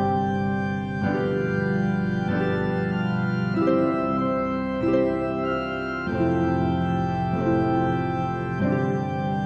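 Background music: sustained organ chords changing about once a second.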